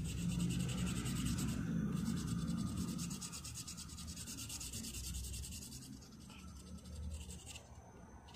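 Dark blue colour being scribbled rapidly back and forth on card sheet: a steady scratchy rubbing with a brief stop about two seconds in, growing fainter near the end.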